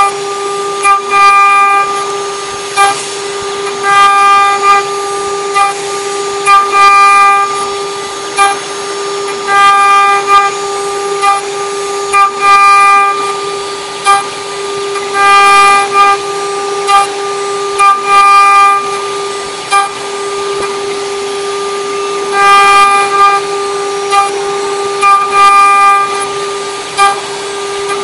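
CNC engraving machine milling copper: the spindle runs with a steady whine, and over it a loud pitched squeal comes and goes in short bursts of about half a second to a second, irregularly spaced, as the cutter works through the metal.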